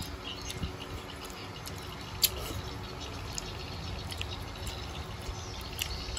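Scattered light clicks and taps of chopsticks and dishes, with one sharper click about two seconds in, over a low steady rumble.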